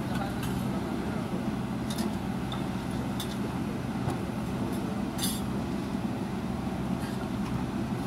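JCB 3DX backhoe loader's diesel engine running steadily as its bucket tips soil into a dump truck, with a few short sharp metallic clinks, the loudest a little past the middle.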